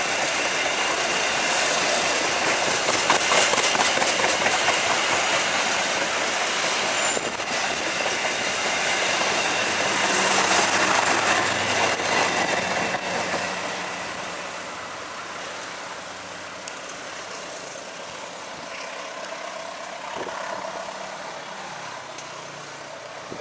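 Passenger coaches of a train rolling past on the rails. The sound grows quieter about halfway through as the end of the train moves away.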